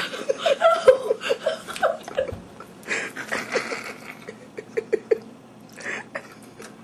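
People laughing in runs of short, quick bursts, with a short noisy rush about three seconds in.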